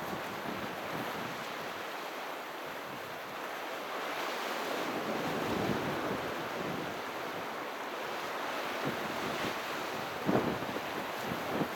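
Sea waves washing onto the shore, a steady surf wash that swells about halfway through, with two short louder bursts near the end.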